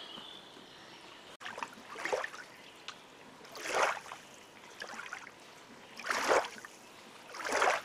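Small waves lapping and washing against a lakeshore, coming as a swell of splashing noise every second or two, with a soft hiss between.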